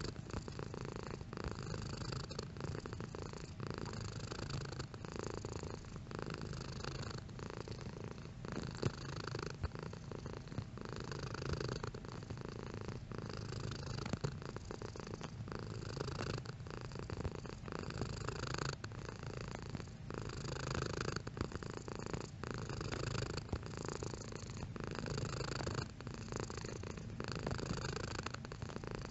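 Domestic cat purring continuously, the purr pulsing in regular cycles about every second or so.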